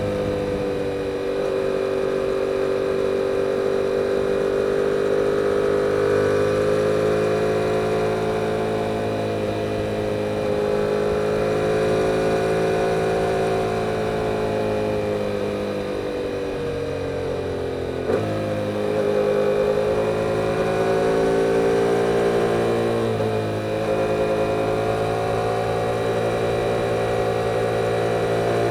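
Yamaha R7's 689 cc parallel-twin engine with stock exhaust running under way, its note drifting up and down with the throttle. About two-thirds of the way in the pitch drops, there is a short click, and the note climbs again, with another brief dip a few seconds later.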